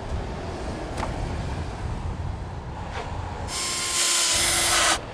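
Cordless drill-driver driving a screw through a metal fixing bracket into the wooden frame of a roof window. It runs with a steady whine for about a second and a half, starting past the middle and stopping sharply. Two light knocks come before it.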